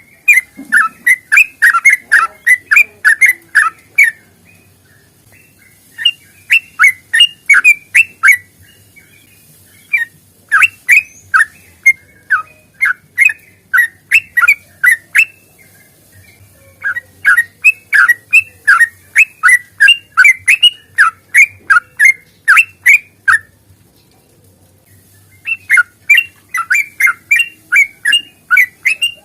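Yellow-vented bulbul singing long, rapid runs of loud chirping notes, about three or four a second, in phrases of several seconds broken by short pauses.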